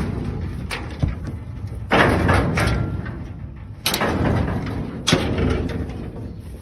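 Metal livestock pen gates and panels banging: three heavy bangs about two, four and five seconds in, each trailing off over about a second, with smaller knocks between.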